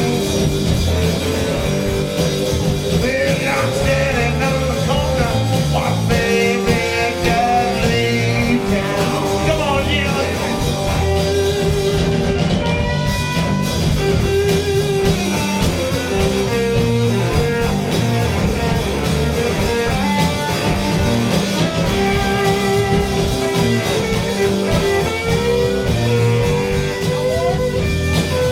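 A blues-rock band playing live, with electric guitar, bass and drums; a lead guitar holds long notes, some of them bent up and down.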